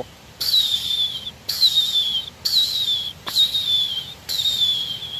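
A person imitating a blue jay's call: five whistled notes about a second apart, each started with a 'k' burst at the same time as the whistle, and each sliding down in pitch.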